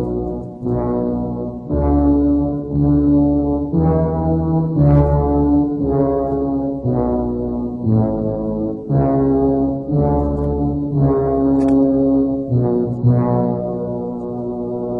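Music led by deep brass notes, a new swelling note or chord starting about once a second.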